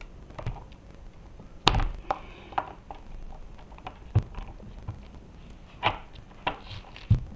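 Scattered clicks and knocks from hands working on an electric skateboard's underside, unplugging the hub-motor cable connector and handling the motor wheel and truck. Seven or so short knocks, the loudest a little under two seconds in.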